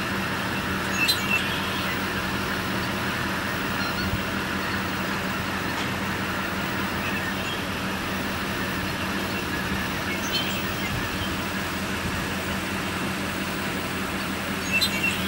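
A massive flock of geese in flight, calling all at once as a dense, continuous clamour, with a few closer, louder calls standing out. A steady low engine hum runs underneath.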